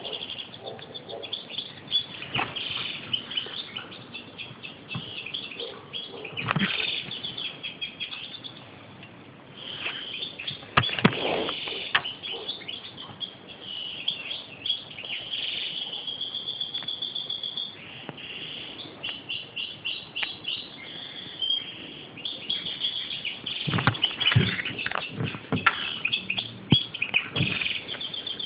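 European goldfinch singing a fast, twittering song of quick repeated notes and trills, with a short lull about nine seconds in. A few knocks break in, the loudest about eleven seconds in and several more near the end.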